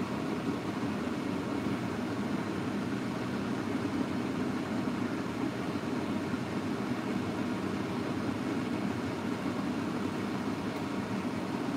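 Steady low rumbling hum in a kitchen while pots heat on an electric stovetop, even throughout with no clatter.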